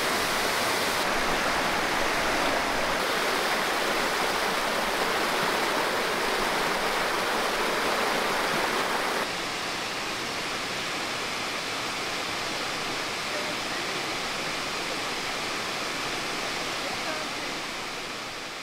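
Steady rush of a wide, tiered waterfall pouring over a rock ledge into a pool. It drops a little in level about nine seconds in and fades out at the very end.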